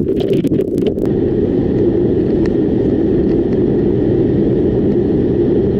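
Wind buffeting the microphone for about the first second, then the steady low drone of a car driving at highway speed, road and engine noise heard from inside the car.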